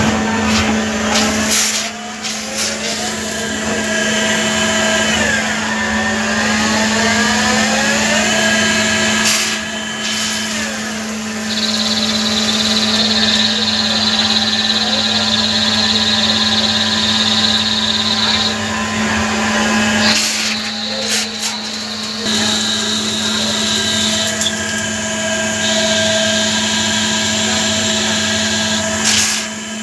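Metalworking machine tool running, with a steady motor hum; its pitch glides down and back up a few seconds in as the speed changes. From about twelve seconds in, a steady high-pitched whine comes and goes several times.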